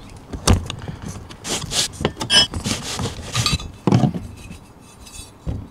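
Flat-blade screwdriver prying and scraping between a wheelchair's split wheel rim and its foam-filled tire, with a run of metal scrapes and clicks, then a couple of knocks as the outer rim half comes free.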